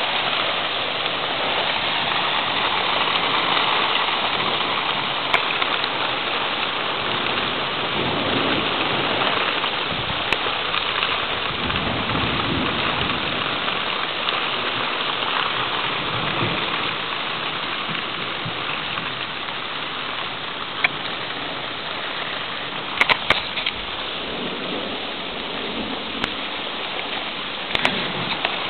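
Strong wind and heavy rain of a thunderstorm: a dense, steady rushing, with low gusty swells partway through, easing slightly in the second half. A few sharp clicks come near the end.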